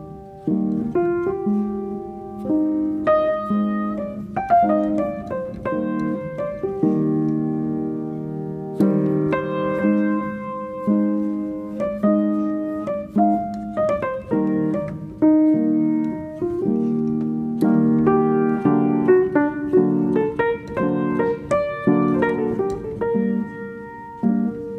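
Background piano music: a melody of held notes and chords.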